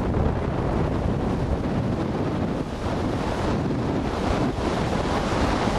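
Wind buffeting a handheld camcorder's microphone: a steady, low, rushing noise with no clear voices or events.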